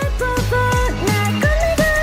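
Electronic music: a synth melody with sliding, pitch-bent notes over deep bass, with bass hits that sweep downward.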